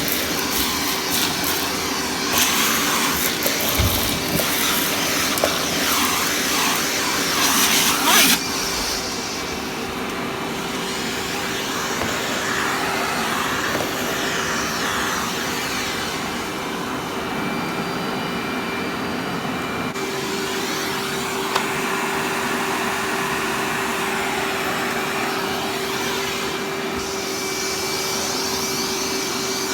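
Vacuum cleaner running steadily, sucking soil up off the floor, with crackling and clicking for the first eight seconds or so as the grit goes up.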